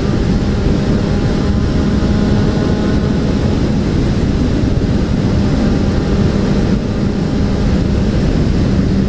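Suzuki Bandit 650N's inline-four engine running at a steady cruise, its tone holding level, under a dense rush of wind and road noise.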